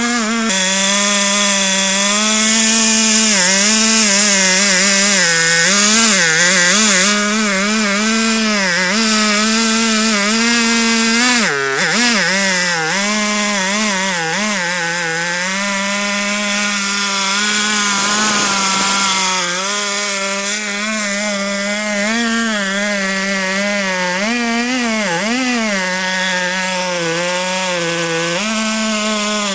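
Petrol chainsaw in a chainsaw mill running at high speed while ripping lengthwise through a log. Its pitch wavers throughout and dips sharply a few times as the cut loads the engine, most deeply about twelve seconds in.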